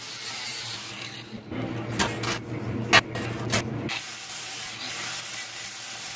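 Angle grinder grinding the steel frame: a steady hissing grind, with a few sharp knocks in the middle.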